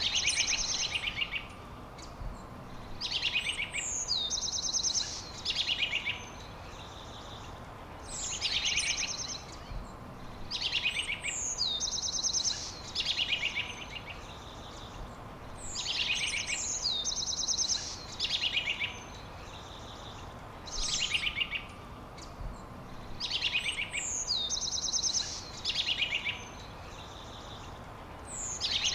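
A songbird singing the same short phrase again and again every few seconds: a quick falling whistle into high, rapid trills, over a steady background hiss.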